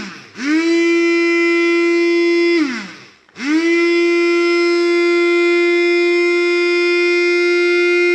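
Small electric motor of a Moulinex kitchen appliance running with a steady high whine, switched off about two and a half seconds in and spinning down, then started again a moment later and spinning back up. The motor had seized and has just been freed with oil; it makes this noise, which is normal, until the oil works in.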